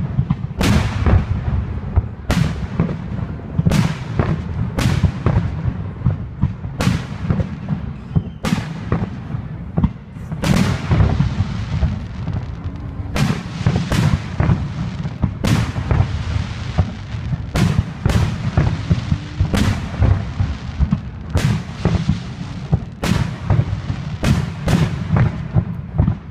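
Aerial fireworks shells bursting one after another, a sharp bang roughly every second, each trailing off in an echoing rumble that never quite dies away between bursts.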